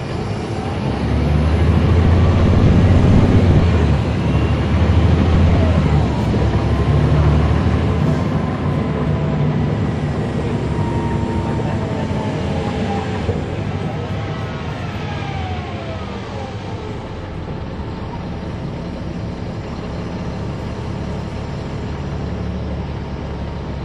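Caterpillar C13 diesel engine of a NABI transit bus pulling under load, loudest for the first several seconds, with a whine from the drivetrain that glides up and down in pitch, then easing to a steadier, quieter run after about fourteen seconds.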